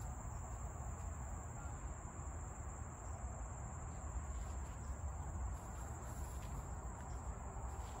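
Insects singing in one steady, unbroken high-pitched drone, over a low rumble.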